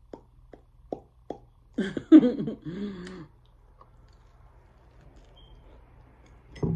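A person eating a sandwich with her mouth full: several short wet mouth clicks and smacks in the first second and a half, then a short muffled voiced sound through the food about two seconds in, quiet chewing, and one more sharp mouth sound near the end.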